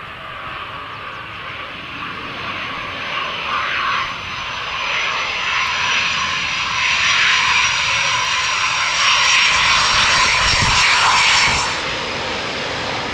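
Eurofighter Typhoon's twin EJ200 jet engines whining and growing steadily louder as the fighter rolls along the runway, then dropping off abruptly near the end.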